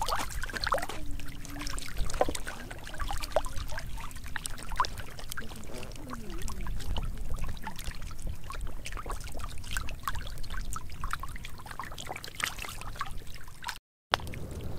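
Catfish thrashing in shallow muddy water, with many short, irregular splashes and slaps. The sound drops out completely for a moment near the end.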